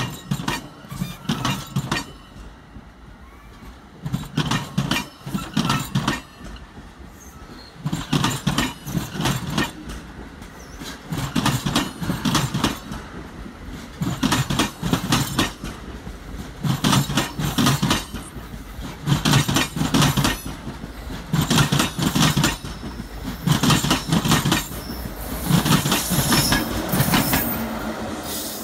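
NJ Transit commuter train of bilevel coaches passing close by: its wheels clack over rail joints in loud clusters every two to three seconds as each car's trucks go past, over a steady rumble. Near the end the pushing ALP-46A electric locomotive comes by with a steadier, continuous rumble.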